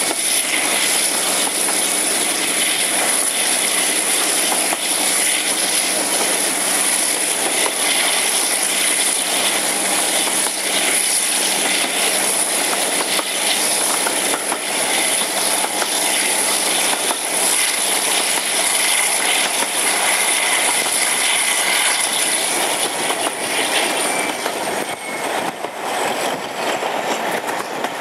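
Class 52 'Western' diesel-hydraulic locomotive D1010 and its twin Maybach engines running under power at the head of a train, heard from an open coach window behind it together with rail noise and wind rush. A high whine holds steady, then falls away in pitch near the end as the sound eases slightly.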